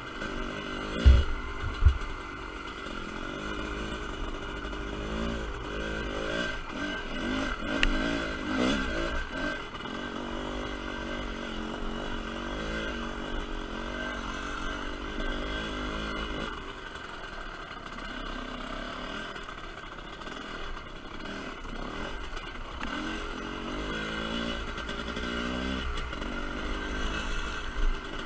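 TM Racing 250cc dirt bike engine running while riding off-road, its revs rising and falling with the throttle. Two loud, low thumps come about one and two seconds in.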